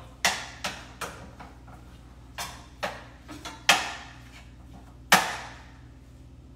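A run of about eight sharp knocks and clatters of cookware and utensils being handled at a kitchen stove, irregularly spaced, each with a short ring. The loudest two come just before the middle and about five seconds in.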